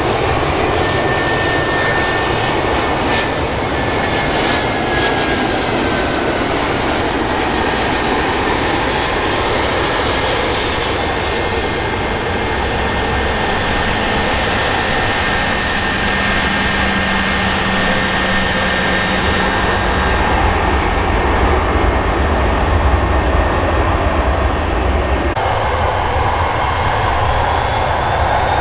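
Boeing 717's twin rear-mounted jet engines on a landing, a loud steady roar. In the first few seconds the engine whine falls in pitch as the jet passes, and the low rumble grows stronger later in the rollout. Near the end a different jet's engines take over.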